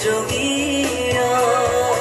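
A man singing a song live into a microphone over band accompaniment.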